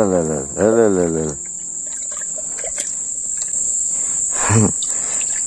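Insects chirring: a steady, high-pitched drone that holds without a break.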